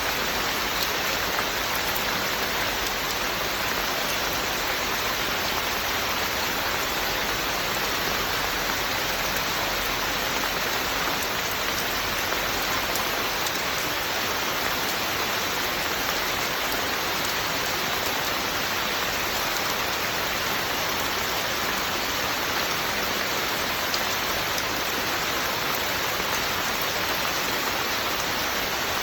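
Steady rain falling, an even unbroken hiss with fine patter of drops.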